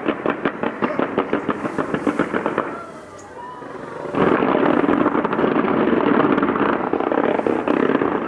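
Fireworks going off: a rapid string of sharp pops, several a second, then a brief lull, then a dense continuous crackling from about four seconds in.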